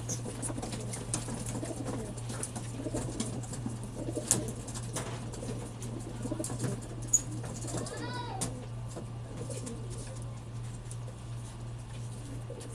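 A crowd of racing pigeons cooing together, with frequent sharp clicks and knocks from the crates they are being loaded into and now and then a flutter of wings.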